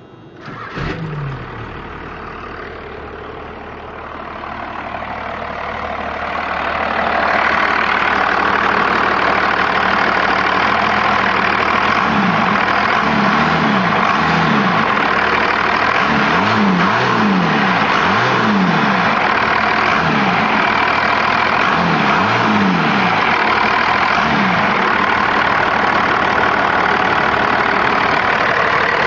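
1989 Dodge Ram D250's engine catching about a second in on its first start after restoration work, then running, getting louder over the next several seconds. It settles into steady running, with the engine speed rising and falling repeatedly for a stretch in the middle.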